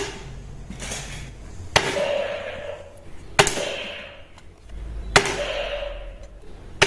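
Four sharp clicks, evenly spaced about a second and a half to two seconds apart, with a faint hiss between them.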